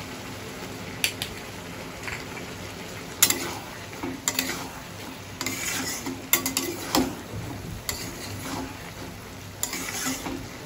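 Steel spatula stirring and scraping cubed bottle gourd around a metal kadai, with irregular scrapes against the pan over a low sizzle of the vegetables cooking.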